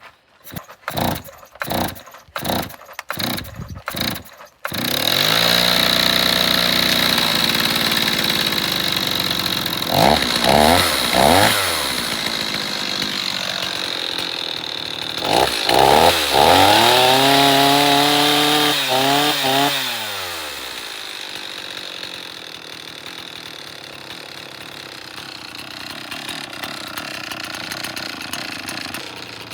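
Stihl chainsaw engine sputtering in a quick string of short pops, then catching about four and a half seconds in and running. It is revved in short blips, with one longer rev around the middle, then drops back and idles steadily on its freshly repaired carburetor, whose mixture was set by guesswork.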